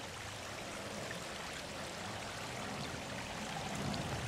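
Water running and trickling steadily over the stones of a newly built garden-pond cascade, pumped round on its first test run.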